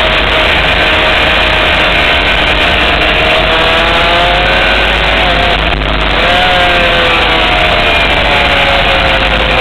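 Honda CBR600 sport bike's inline-four engine running hard at speed, heard from on board. Its pitch falls and rises with the revs, with a brief break about six seconds in.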